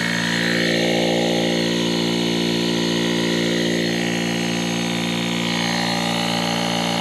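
GOOLOO battery-powered portable tire inflator's small compressor running at a steady pitch, pumping up a nearly flat truck tire.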